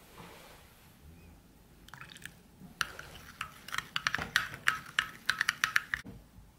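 Metal spoon stirring a thick jam glaze in a ceramic bowl, with wet stirring sounds and quick clinks against the bowl's sides, several a second. The clinks start about two seconds in, grow louder and stop suddenly near the end.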